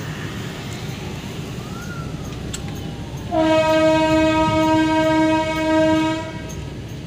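A train horn sounds one long, steady blast of about three seconds, starting about halfway through, over a steady low rumble with scattered clicks.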